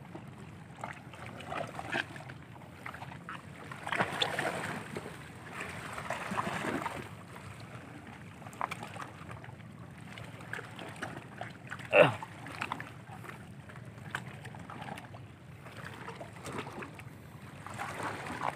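Steady wind and surf noise at a rocky shoreline, with scattered knocks and clicks and one sharp, loud, falling sound about twelve seconds in.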